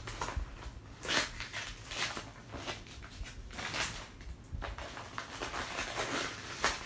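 Crinkling and rustling of a pink gift pouch's packaging as it is pulled and pried open by hand, the opening stuck shut with double-sided tape. It comes as irregular crackles and scrapes of differing strength.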